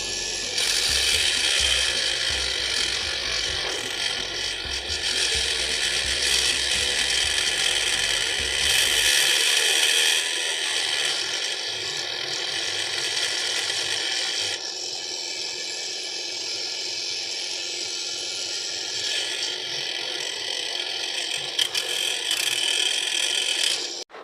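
Homemade mini grinder driven by a 775 DC motor, running and grinding with a harsh, dense noise that swells and eases several times. A low hum underneath drops out about nine seconds in.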